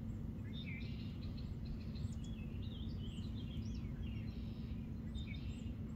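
Outdoor ambience with small birds chirping here and there over a steady low rumble and hum.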